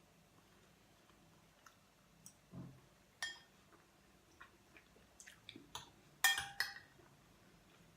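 Spoon and tableware clinking and tapping during a meal: scattered light clicks, a soft thud about two and a half seconds in, and the loudest few clinks, one briefly ringing, a little after six seconds.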